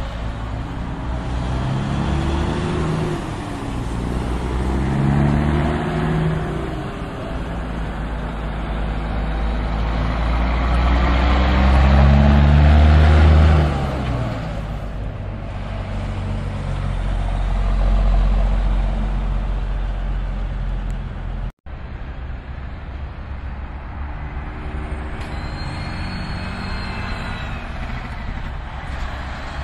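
Diesel semi-truck engines pulling tractor-trailers slowly past at close range, each climbing in pitch and dropping back as the trucks accelerate and shift through low gears, several times over. The loudest pass comes a little before the middle.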